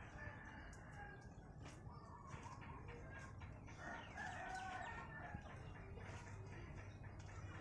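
A rooster crowing faintly in the background, loudest about four seconds in, with scattered faint clicks.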